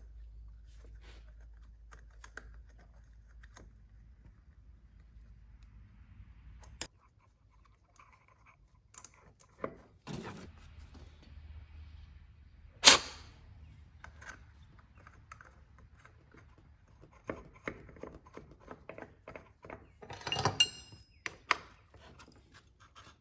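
Small metal parts and hand tools being handled: scattered clicks and taps, one sharp knock about 13 seconds in, and a short jangle of metal near the end, as a fresh Schrader valve goes into the AC line.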